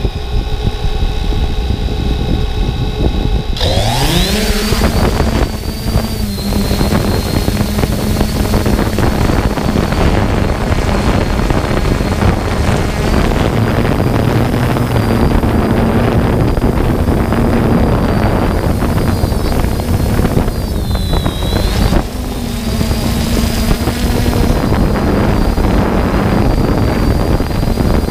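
3DR Solo quadcopter's electric motors and propellers, heard from its onboard camera: a steady whine at idle that rises sharply in pitch about three and a half seconds in as the drone lifts off. It then settles into a steady, loud hum with a high whine as it climbs and flies, wavering and dipping briefly about twenty seconds in.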